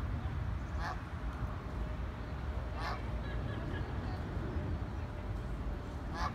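Eurasian coot giving three short, sharp calls a few seconds apart over a steady low background rumble.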